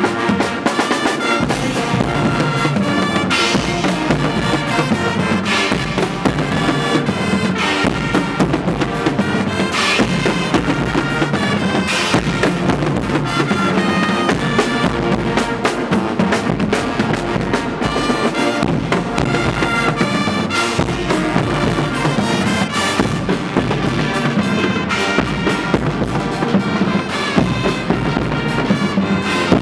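Guggenmusik carnival band playing live: trumpets, saxophones and sousaphones in a loud brass chorus over bass drums and drum kit keeping a steady beat.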